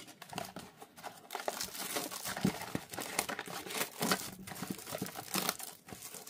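Plastic shrink-wrap being torn off a trading-card blaster box and crinkled in the hands: a dense run of crackles and small tearing sounds.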